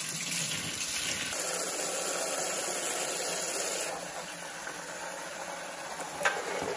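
Kitchen faucet running a steady stream of hot water, first splashing into a stainless steel sink, then pouring into a plastic tub as it fills.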